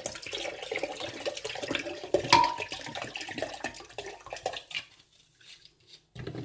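Water poured into a stainless-steel bowl through a metal sieve of blended rice pulp, splashing, with small clinks against the metal; it stops about three quarters of the way through. A short knock near the end.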